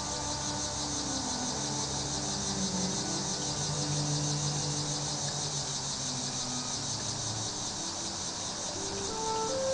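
Crickets chirping in a steady, fast-pulsing chorus. Soft low held tones sound under it and fade out about three quarters of the way through, and a rising run of higher notes begins near the end.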